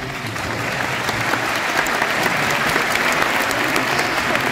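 Audience applauding: dense, steady clapping that builds a little over the first couple of seconds and then holds.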